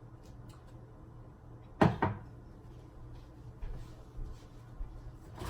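Two sharp knocks in quick succession about two seconds in, and another near the end, like a cupboard door banging shut, over a steady low hum.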